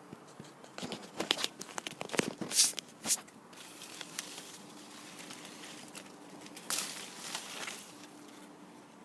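Grapefruit tree leaves and twigs rustling and crackling as a hand pushes into the foliage to reach a fruit. A burst of sharp crackles and snaps comes about a second in, and a shorter rustle comes near the end.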